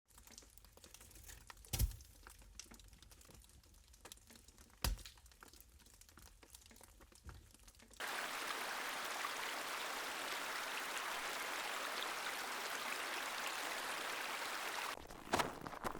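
Fire crackling: faint, irregular crackles with two louder pops. About halfway through, a steady hiss cuts in and holds for about seven seconds, then stops. Near the end, footsteps crunch in fresh snow.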